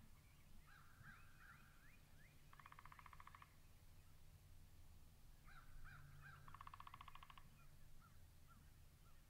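Wild turkey gobblers gobbling: two rapid rattling calls of about a second each, a few seconds apart, with short rising chirping notes between them.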